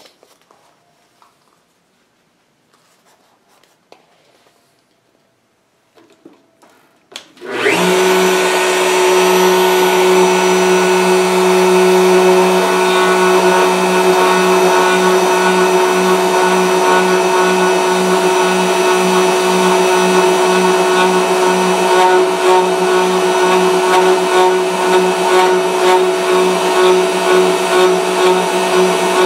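Faint handling sounds, then about seven seconds in the router motor of a gunstock duplicating carver starts and runs loud and steady with a high whine, its cutter carving an English walnut HW80 stock blank as the operator traces the pattern.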